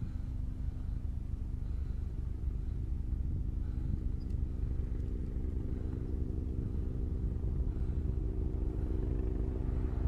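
An engine running steadily with a low, even hum, growing a little stronger from about four seconds in.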